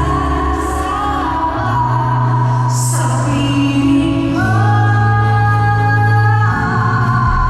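Live pop ballad music: a woman singing long held notes over a band with steady bass.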